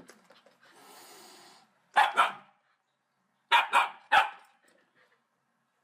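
A dog barking in short loud bursts: a double bark about two seconds in, then three quick barks about a second and a half later.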